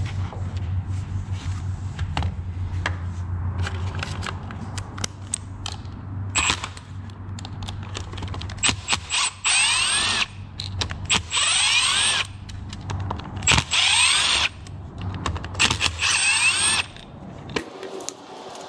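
Cordless drill run in five short bursts, each a second or so long, its motor whine rising in pitch as it spins up. A low steady hum runs underneath and stops near the end.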